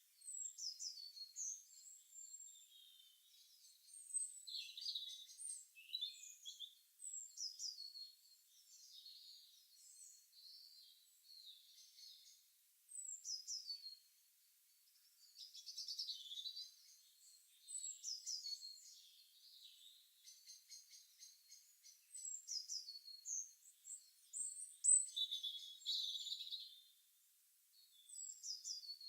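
Songbirds singing: repeated high-pitched chirps and quick downward-sweeping whistled phrases, coming in bursts every few seconds with short pauses between.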